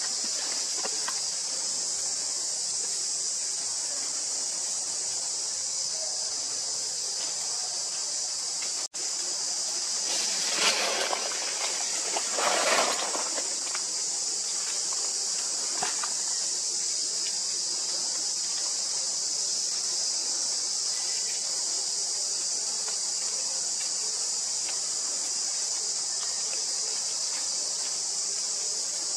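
Steady, high-pitched chorus of insects. About ten and twelve seconds in, two short, louder bursts of noise rise over it.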